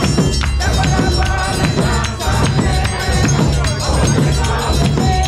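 Gospel song performed by a group of singers over a heavy, steady drum beat with shaken percussion.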